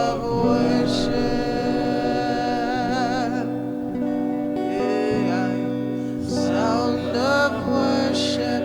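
Slow worship music: sustained held chords with a voice singing long, wavering notes over them.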